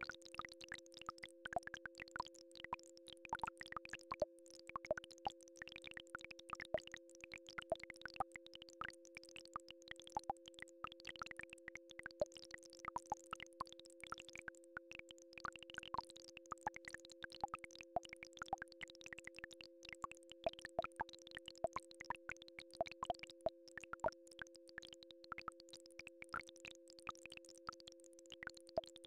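Two steady electronic tones held together without a break, one low and one a little higher, from a frequency-healing track. Soft irregular clicks and pops are scattered over them.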